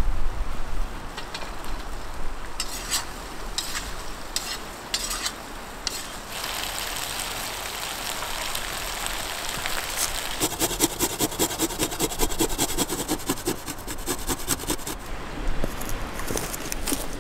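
Cubed potatoes going into a cauldron of meat frying in hot oil over a campfire. There are a few sharp clicks in the first seconds, then steady sizzling, and from about ten seconds in a fast, even run of rattling strokes for several seconds.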